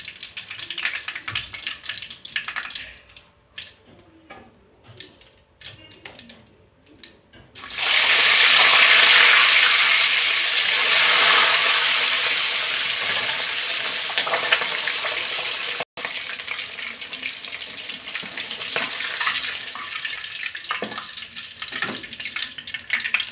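Marinated chicken pieces deep-frying in hot oil in a wok. For the first several seconds there is only light crackling and scattered ticks of oil. About eight seconds in, a loud sizzle starts suddenly as the chicken goes into the oil, then slowly eases as it fries on.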